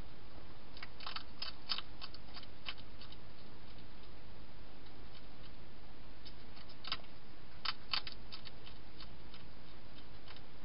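Wild hedgehog chewing dry food, irregular crunching clicks in two clusters, about a second in and again around seven seconds in, over a steady hiss.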